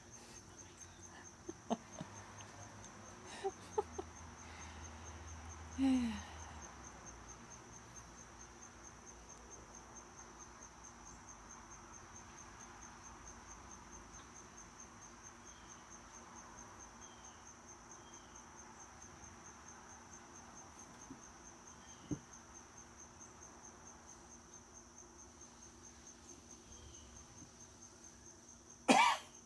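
An insect's steady, high-pitched pulsing trill that carries on without a break. A few faint clicks and a short falling sound come early, and a loud short noise comes near the end.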